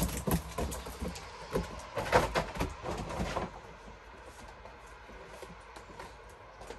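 A quick run of knocks, clatters and rustling, as things are handled and set down, for about three and a half seconds, then quiet work noise.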